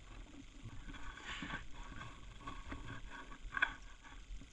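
A flock of birds calling with short, repeated chirps, over low wind rumble on the microphone, with a sharp click about three and a half seconds in.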